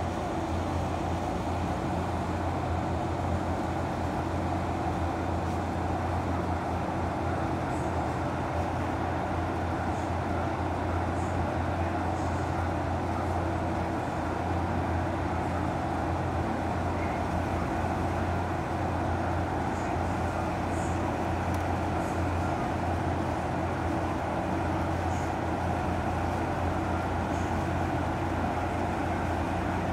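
Steady low mechanical hum that does not change, with a few faint, short high chirps now and then.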